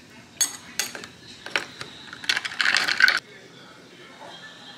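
A metal spoon clinking against a glass mason jar with ice in it: a few separate clinks, then about a second of quick rattling as it is stirred, near the middle.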